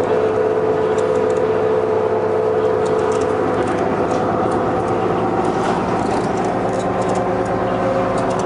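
New Flyer D40LF transit bus running steadily, heard from on board: an engine hum with a steady whine over it and light rattles.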